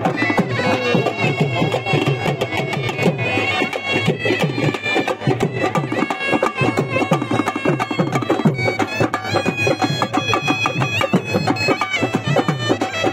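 Shehnai playing a reedy, ornamented melody over fast, steady drumming on barrel drums and small kettle drums: a traditional shrine band.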